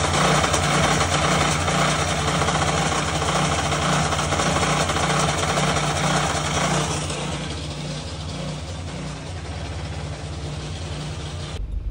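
Small engine running steadily, driving a chaff cutter that chops green fodder, with the chopping machinery's noise over the engine hum. The sound drops noticeably in level about seven seconds in.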